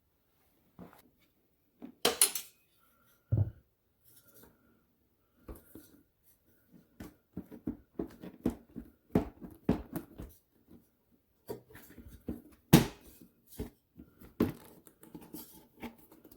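Irregular clicks, clunks and scraping of hands and tools working on the carburetor of a Honda ATC 200X three-wheeler as it is pulled loose. There is a sharp knock about two seconds in, a dull thump just after, a busy run of small clicks past the middle, and the loudest knock near the end.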